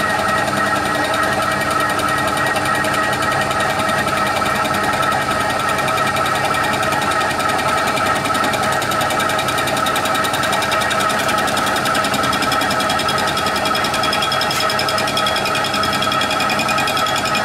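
TOS FNK25A milling machine with a large face-milling cutter skimming the deck face of an aluminium three-cylinder cylinder head, a light cut of about two thousandths of an inch. A steady machining sound with a constant high tone, and more high-pitched tones joining about two-thirds of the way through.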